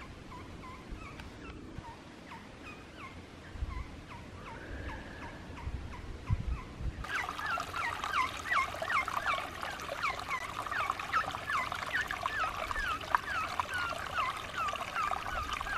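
An animal calling in a long series of short, quick chirps that fall in pitch, about three or four a second. They are faint at first and become much louder about halfway through.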